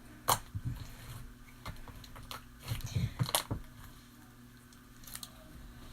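Handling noise from slime and its plastic containers: a few scattered clicks and knocks, one about a third of a second in and a small cluster around the middle, over a faint steady hum.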